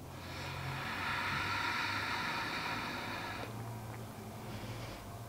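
A long breath close to the microphone, a steady airy hiss lasting about three seconds, taken while holding a lying spinal twist.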